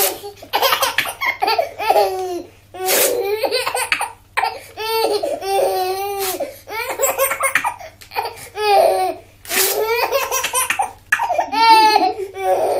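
Baby laughing hard in repeated bursts of belly laughter, set off by short, loud bursts of paper being torn about every three seconds.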